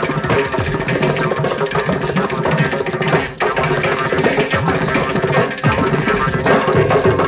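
Music driven by drums and hand percussion, with a busy, steady beat.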